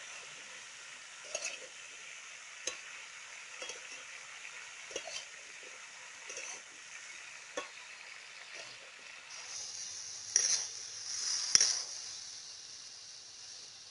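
A metal spatula stirring chopped taro stems in a large metal karahi, each stroke a short scrape against the pan about once a second over a steady sizzle. About ten seconds in, the sizzle grows louder and steam rises, with two sharp hissing bursts.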